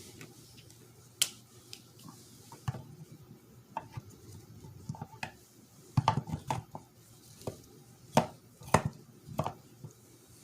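Irregular clicks, taps and clatter of hand tools and shifter-assembly parts being handled during disassembly, with a busy cluster about six seconds in and two sharper knocks shortly after.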